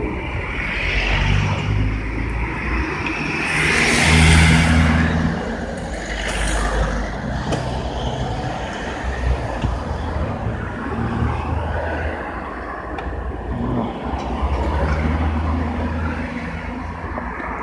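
Motor vehicle engine running, with a louder rush of noise about four seconds in.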